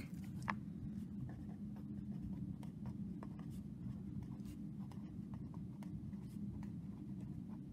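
A pen writing on lined notebook paper: faint scratching of the tip in many short strokes, over a steady low hum.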